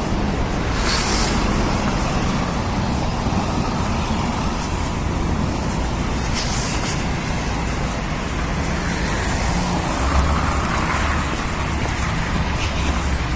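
Road traffic noise: a steady rumble of passing cars, with a couple of brief hissing swells as vehicles go by, about a second in and again about six seconds in.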